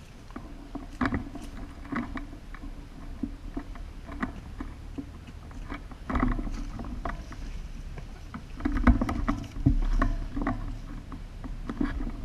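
Irregular clicks and knocks with rustling, and heavy low rumbling bumps on the microphone a little past halfway and again near the end.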